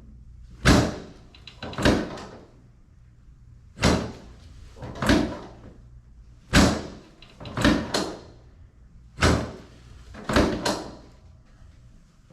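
Chiropractic drop table's drop section falling and stopping with a sharp clack, about nine times, often in pairs about a second apart, as the patient's tailbone is adjusted with quick thrusts.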